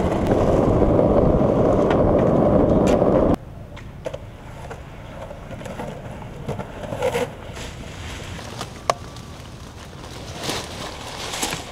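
Skateboard wheels rolling over rough pavement in a loud, steady rumble that cuts off abruptly about three seconds in. Quieter rolling follows, with a few scattered clicks and knocks from the board.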